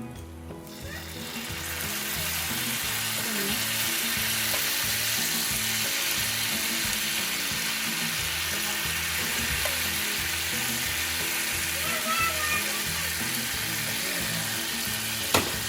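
Gravy sizzling on a hot sizzling plate. It starts about a second in, swells quickly, then keeps up a steady loud hiss. There is a single sharp click near the end.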